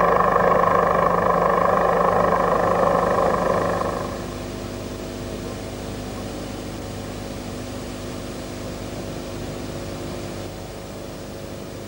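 A steady mechanical hum or whirr at a constant pitch that drops to a quieter level about four seconds in and then stays steady.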